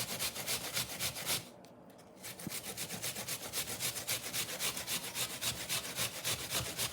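Hand grater rasping through an apple in quick, even strokes, about five a second, with a short pause about a second and a half in.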